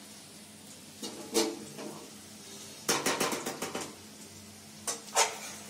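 Metal spatula scraping and clinking against a metal kadhai and a steel plate as fried potato cubes are scooped out: a knock about a second and a half in, a rattle of quick clicks around three seconds, and two sharp clanks near the end.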